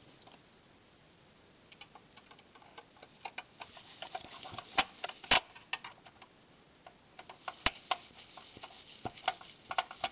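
A screwdriver drives a wiper blade screw into the plastic frame of a Lexmark OPC drum cartridge. It makes irregular small clicks and ticks that begin about two seconds in, with a few sharper clicks in the middle.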